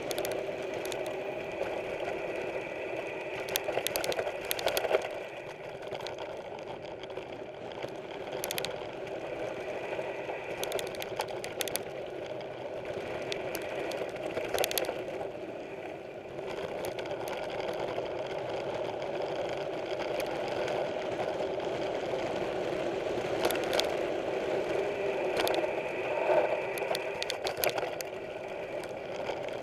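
Mountain bike being ridden on a trail: a steady whirring with scattered rattles and sharp clicks from the bike.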